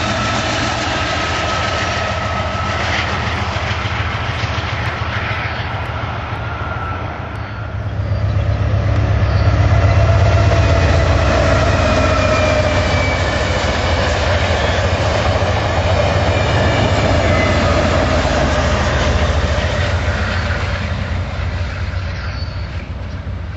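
Amtrak diesel passenger trains, hauled by GE Genesis locomotives, passing close by one after another. There is a low diesel engine hum and rushing wheel-on-rail noise with some clickety-clack. The second train's engine is loudest from about eight to eleven seconds in.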